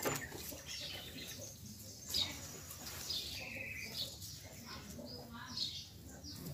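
Small birds chirping: short, high, downward-sliding calls repeated every second or so.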